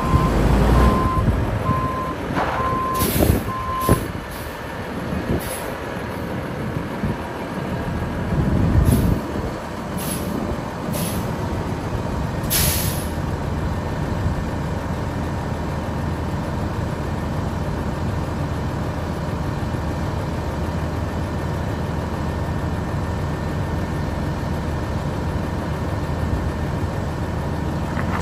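Kenworth W900 mixer truck's Cummins ISM 350 diesel engine running, with its backup alarm beeping about once a second and stopping about four seconds in. Short sharp air hisses from the air brakes come several times over the next ten seconds, with the engine revving briefly twice. The engine then settles into a steady idle.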